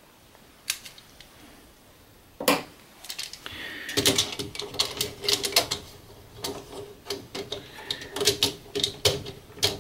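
Irregular clicking and snapping of plastic as DIN-rail circuit breakers are pushed onto the rail and seated in an electrical panel. There is a single click just under a second in, then a quick, uneven run of clicks from about two and a half seconds on.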